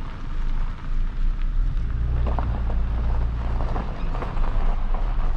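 Low rumble of a car rolling slowly on a gravel road close by, with scattered crunching of gravel. The rumble grows louder about two seconds in.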